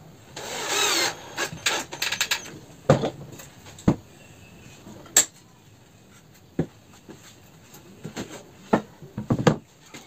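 Cordless drill driving a screw into plywood in one short run of about a second, its pitch wavering. Then a series of sharp wooden knocks and clunks as the plywood pieces and the drill are handled and set down on the workbench.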